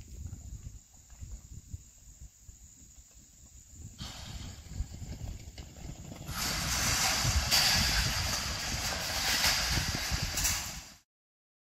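A herd of maral deer galloping across a grassy pen: a low drumming of hooves, joined about four seconds in by a rushing hiss that grows loud about halfway through. All sound cuts off suddenly near the end.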